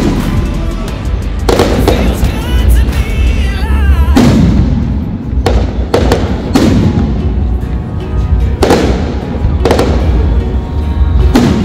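Aerial firework shells bursting overhead: about eight loud bangs, one every second or two, over a steady low rumble.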